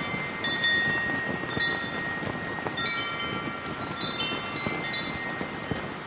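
Brass wind chimes ringing in gusts, with about five clusters of strikes whose tones ring on, over steady heavy wind noise and a flapping flag.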